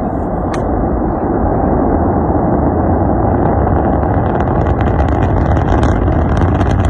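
Rocket engine noise at launch: a loud, dense, steady rumble that grows a little louder, with crackling joining about halfway through.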